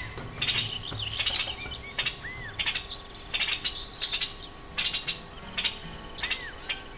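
Background music with a steady beat of short high clicks about every two-thirds of a second, held sustained tones underneath, and short arching, bird-like chirps between the beats.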